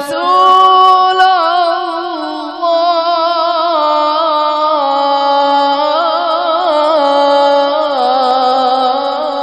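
A man reciting the Quran in melodic tajweed style, drawing out the word "rasul" in one long ornamented phrase whose pitch steps down several times.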